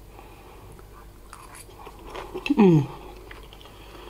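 A person chewing a mouthful of fried noodles, faint and soft, with a short hummed 'mmm' falling in pitch about two and a half seconds in.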